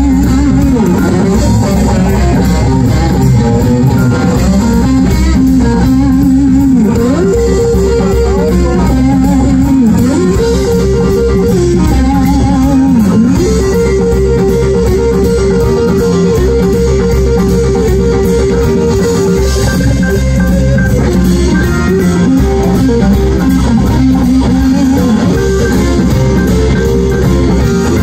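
Live rock band playing loudly through a PA, led by electric guitar over bass. The guitar slides between notes several times and then picks a quickly repeated riff.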